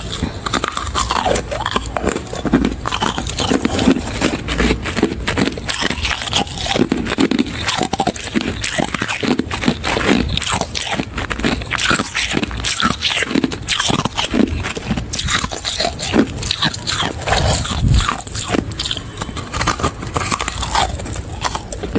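A person biting and chewing large lumps of freezer frost: a continuous run of crisp crunches and crackles.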